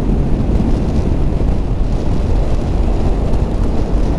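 Heavy, steady wind noise buffeting the microphone on a moving motorcycle, with the Honda CB500F's parallel-twin engine running underneath at road speed.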